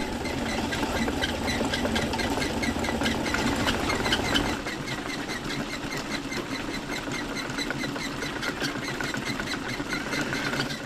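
Fast, steady clicking and tapping of many hand tools at work, typical of carpet weavers beating down knots with metal combs. A low rumble underneath stops about halfway through.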